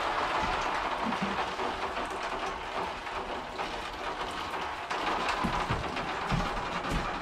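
Water pouring from a plastic watering can onto potted plants: a steady splashing patter that eases off and picks up again about five seconds in, with a few light knocks.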